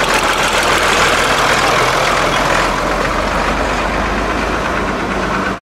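Ford tractor's diesel engine running as the tractor passes close by and pulls away, a little quieter after about two and a half seconds. The sound cuts off suddenly near the end.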